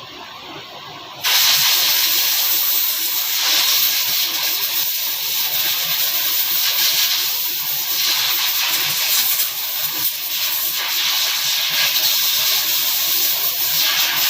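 A loud, steady hiss of a pressurised jet, starting suddenly about a second in and running on with slight surges, as when blowing out or spraying engine parts during an overhaul.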